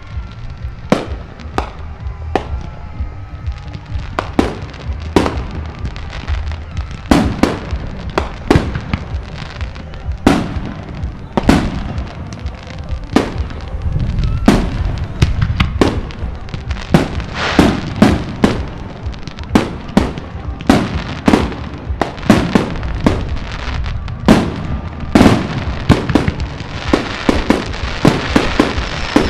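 Fireworks display: aerial shells bursting one after another at irregular intervals, sharp bangs over a steady low rumble, coming thicker and faster in the second half.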